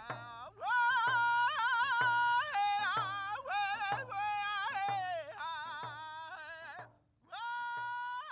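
A man singing in a high, wavering voice while beating a hand-held frame drum in a steady beat, a little faster than one stroke a second. The singing breaks off briefly about seven seconds in and then resumes.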